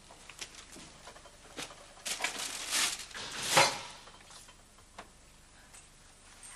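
Kitchen handling sounds: a few light clicks, then a second or two of rustling and knocking, loudest about three and a half seconds in, as a small refrigerator door is pulled open.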